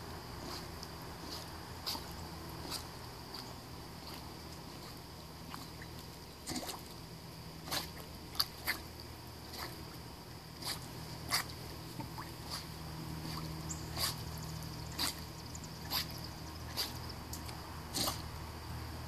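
Swimming-pool water at the camera: irregular sharp ticks and clicks, about one or two a second and more frequent in the second half, over a steady low hum.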